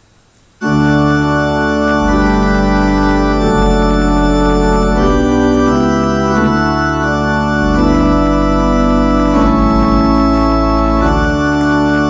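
Organ playing slow, sustained chords over a deep bass line, starting suddenly less than a second in.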